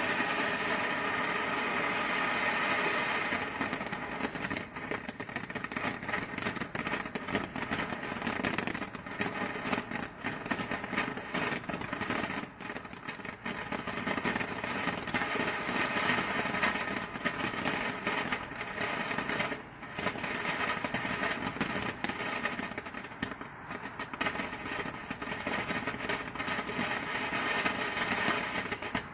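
Golden Empire stick fountain firework burning in a steel pipe: a steady spraying hiss with many small crackles throughout.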